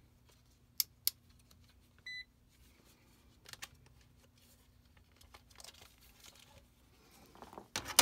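Clamp meter and test leads being handled and set up for a voltage check: two sharp clicks about a second in, a short electronic beep from the meter a second later, then light rustling and clicks. A faint steady hum runs underneath.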